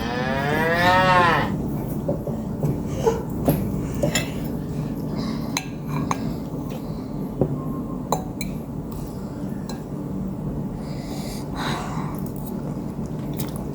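A cow's moo, used as an edited-in sound effect: one call of about a second and a half at the start, rising then falling in pitch. Scattered light clicks and taps follow over a steady low hum.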